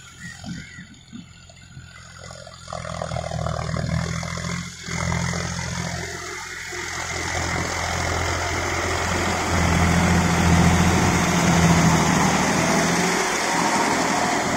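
John Deere 4WD tractor's diesel engine running under load as it pulls a rotavator through wet mud, with a steady hiss over it. Faint at first, it comes up after a few seconds and is loudest in the second half as the tractor passes close.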